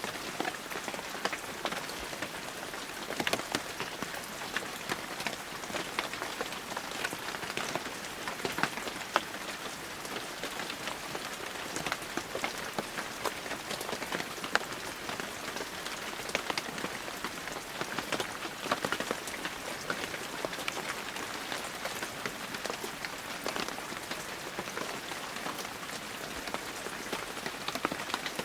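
Steady heavy rain falling, with many sharp individual drops pattering on a surface close by.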